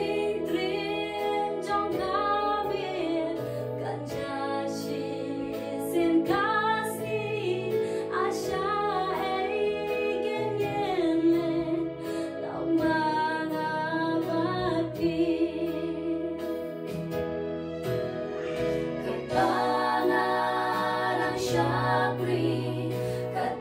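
A hymn sung slowly, led by a woman's voice, over instrumental accompaniment with long held bass notes.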